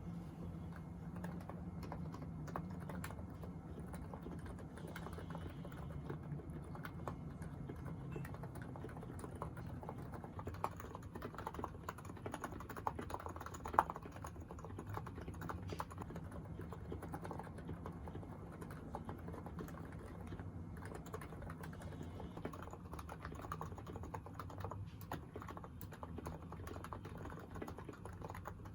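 Continuous typing on a Niz Plum Atom 68, a keyboard with Topre-clone electrostatic capacitive switches: a steady, irregular run of soft keystrokes, with one louder strike about halfway through.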